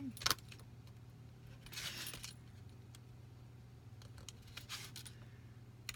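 Small metallic clicks and scrapes from a scalpel-type craft knife having its blade changed, with one sharp click about a third of a second in.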